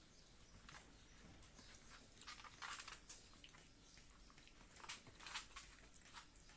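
Near-silent room with scattered faint clicks and scuffles in two clusters, about two and a half and five seconds in: Scottish terrier puppies moving about and playing on a wood-effect floor.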